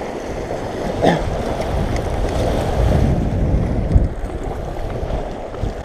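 Wind buffeting the microphone over waves washing against the shore, with a brief thump about four seconds in.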